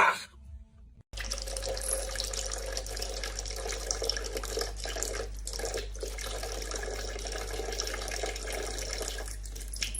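Steady running water, starting after a moment of silence about a second in, over a steady low hum.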